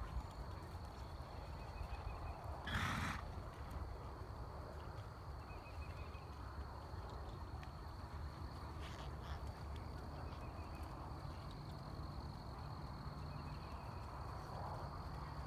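A horse trotting under a rider on the sand of a riding arena, with a steady high-pitched hum throughout and one short, loud noisy burst about three seconds in.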